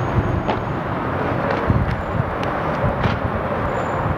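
Outdoor roller hockey rink ambience: a steady rush of noise with a few sharp clacks of sticks and puck on the asphalt.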